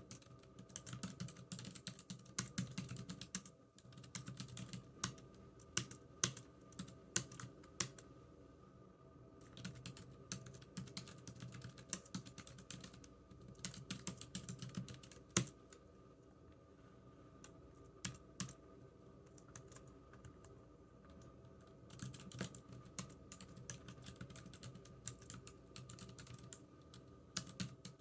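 Computer keyboard typing in bursts of quick keystrokes with short pauses, then a long lull in the middle with only a few single keystrokes before it picks up again near the end.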